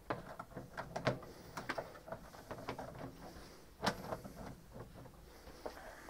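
Light plastic clicks and knocks as the washing machine tub's plastic top cap ring is handled on the rim of the drum opening, with a sharper knock about four seconds in.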